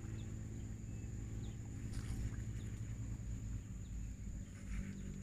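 Quiet outdoor background: a steady low hum and a thin, steady high-pitched tone, with a few faint short chirps.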